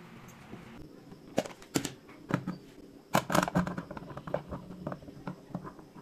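Pieces of cut green beans dropped by hand into a clear plastic storage container: an uneven patter of light clicks and taps, thickest around the middle.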